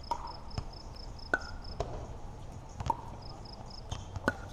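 Pickleball rally: paddles and the plastic ball making short sharp pops about every half second to a second, the loudest a little over a second in. Behind them an insect chirps in short, even pulses, about five a second, pausing midway.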